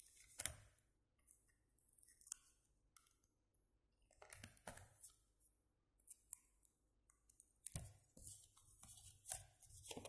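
Faint, irregular crinkling and rustling of paper and clear sticky tape being handled and pressed down over the edges of a small paper cut-out, in scattered clusters of soft crackles with short quiet gaps between them.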